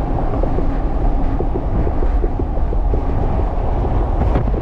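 Vehicle driving: a steady low rumble of engine and road noise, with wind buffeting the microphone.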